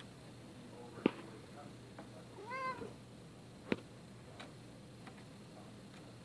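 A domestic cat gives one short attention-seeking meow, rising then falling in pitch, about two and a half seconds in. Two sharp clicks come about a second in and just before four seconds.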